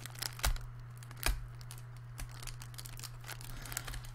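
Plastic wrapper of a tube of rice cakes being torn open and crinkled by hand: scattered crackles, with two louder snaps about half a second and a little over a second in.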